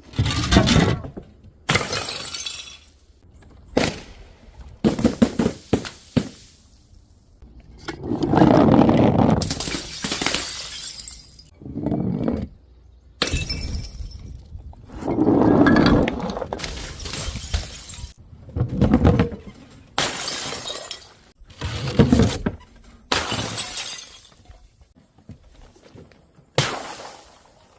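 Glass bottles shattering: a series of a dozen or so separate crashes, each with breaking glass, a few drawn out for a second or two with scattering shards, separated by short gaps.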